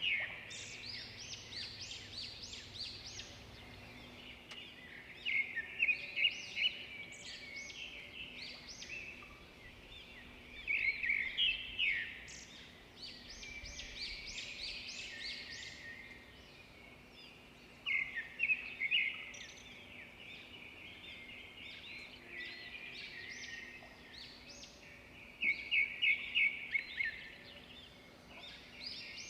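Several songbirds singing and calling at once, a dense run of chirps and trills, with a louder song phrase every six or seven seconds; the one near the end is a quick series of five or six notes.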